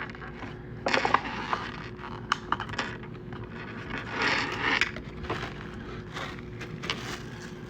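Scattered clicks, light knocks, scrapes and crackling of fried chicken and its takeout packaging being handled.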